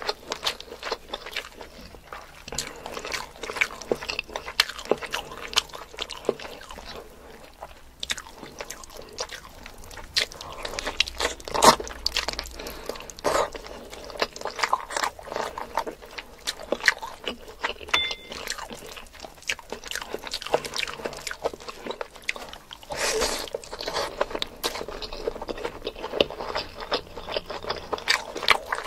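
Close-miked chewing and biting of spicy mutton kosha with rice: wet mouth sounds and many sharp, crunchy clicks, the loudest about twelve seconds in.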